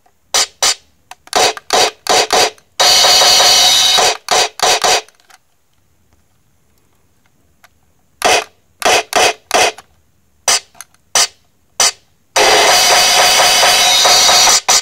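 Toy finger-touch tabletop drum set sounding electronic drum and cymbal hits through its small built-in speaker as its pads are tapped: short separate hits in uneven groups, a pause of about three seconds in the middle, and longer unbroken stretches of sound about three seconds in and near the end.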